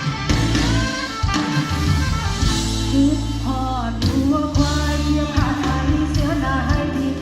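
Band music with drums and bass under a melodic lead line that slides and bends in pitch.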